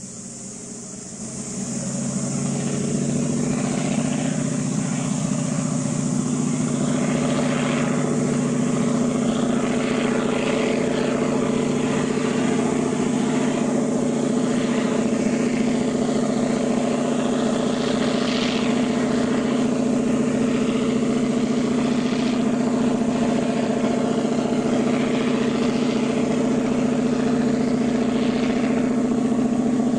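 Diesel locomotive engine working steadily under load as the train climbs the valley, a loud, even drone that comes up about a second and a half in.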